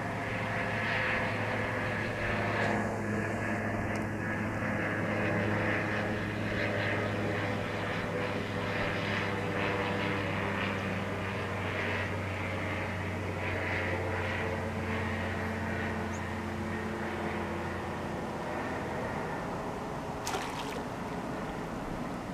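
A steady low engine drone, one even hum that holds its pitch and dies away about three-quarters of the way through. A single sharp click comes near the end.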